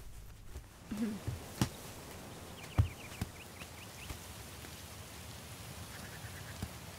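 Outdoor ambience: a steady soft hiss with a few sharp knocks, the loudest a little under halfway through. A bird calls in a quick run of short, high chirps a few seconds in, and again more faintly near the end.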